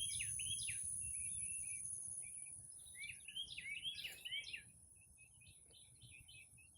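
Small birds chirping and twittering in quick, repeated short calls, over a steady high-pitched tone.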